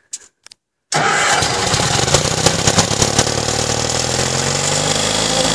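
A 1950s Koehring crane's engine starting from cold after standing two years: it catches suddenly about a second in and runs loudly and steadily.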